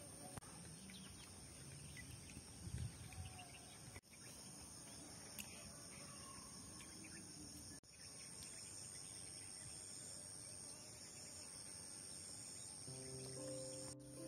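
Faint, steady, high-pitched insect chirring, with part of it pulsing on and off. Soft music comes in near the end.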